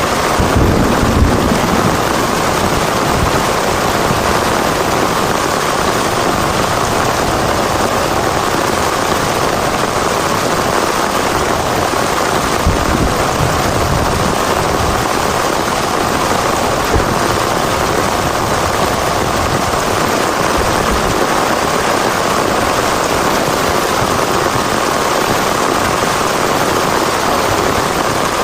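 Heavy rain falling steadily, a dense even hiss, with a brief low rumble about a second in.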